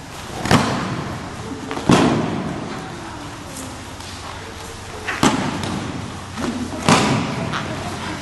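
Aikido breakfalls: bodies hitting the training mats in four heavy thuds, two close pairs, each echoing in a large hall.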